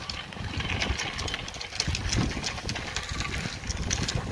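Wind buffeting the microphone: an irregular, gusting low rumble with scattered light clicks.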